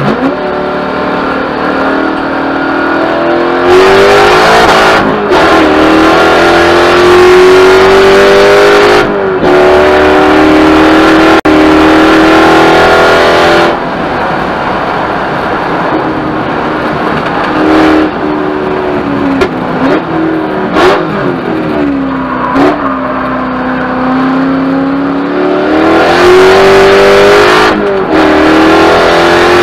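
Corvette race car's V8, heard from inside the cabin, pulling hard through the gears with its pitch rising and dropping sharply at each upshift. It then lifts off and the pitch falls and wavers through downshifts for a corner, before it climbs again under full throttle near the end.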